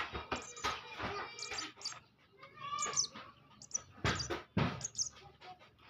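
Hand-fed baby birds giving short, high begging chirps, mixed with repeated clicks and knocks from handling.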